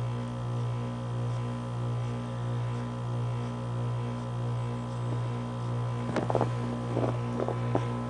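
Lennox heat pump outdoor unit humming steadily in defrost mode, the hum swelling and fading slightly about once a second. A few short crackles and ticks come about six to eight seconds in.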